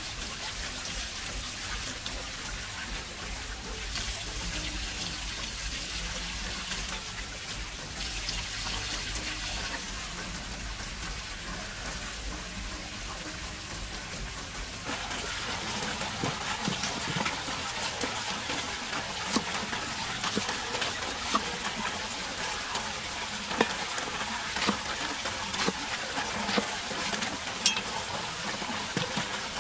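Running water splashing steadily while a cleaver pares a pineapple. From about halfway through come repeated sharp knocks of the cleaver chopping pineapple on a wooden chopping block.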